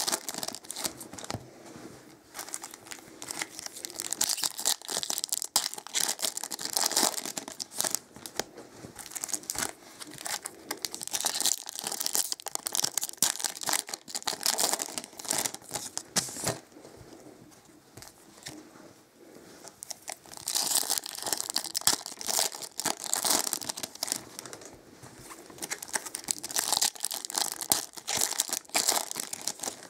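Foil trading-card pack wrappers being torn open and crinkled by hand, in repeated bouts of crackling, with a quieter stretch a little past the middle.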